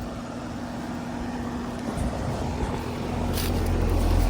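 Central air conditioner's outdoor unit humming steadily, with a low rumble that builds and grows louder about three seconds in.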